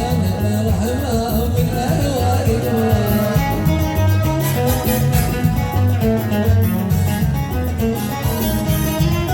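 Yemeni zaffa music: an electronic keyboard (org) playing the melody over a steady, driving percussion beat, with a male singer's voice.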